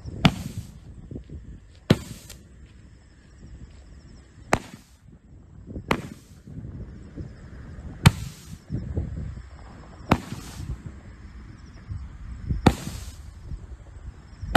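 Angel Dust XL firework barrage cake firing single shots, one sharp bang about every two seconds, eight in all, over a low rumble.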